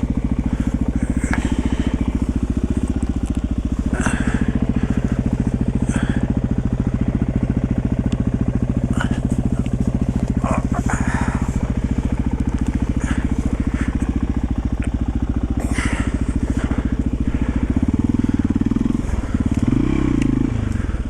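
1991 Yamaha XT350's single-cylinder four-stroke engine running steadily, with scattered clicks and rustles over it. The engine sound swells louder near the end.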